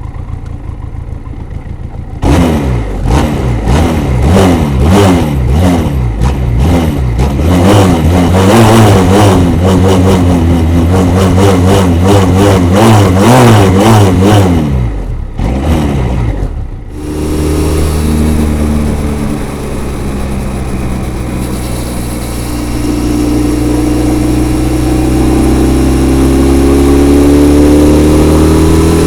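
Benelli TRK 502's parallel-twin engine through its stock, unmodified exhaust, revved in rapid repeated throttle blips for about a dozen seconds. It then settles into a steady run, with the pitch rising gradually near the end.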